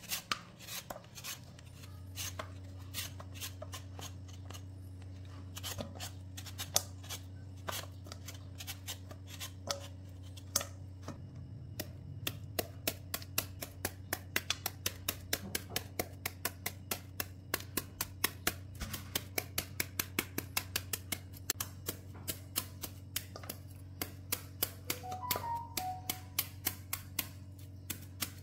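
A Y-shaped vegetable peeler scraping strips of skin off a green mango in short repeated strokes, then a knife cutting into the peeled mango in quick, regular strokes, about two to three a second. A low steady hum sits underneath from about two seconds in.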